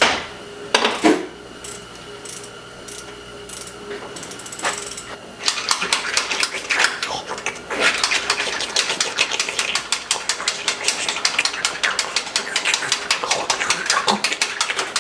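Metal hand tools working on an engine: a few separate clanks, then from about five seconds in a fast, uneven run of sharp metallic clicking and scraping.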